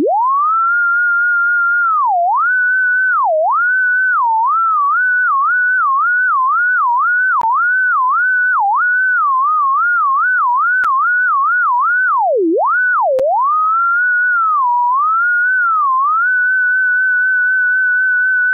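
A single pure electronic sine-wave tone sweeps up at the start. It then wavers around a high pitch with many quick dips, swoops down deeply twice a little past the middle, and holds steady near the end.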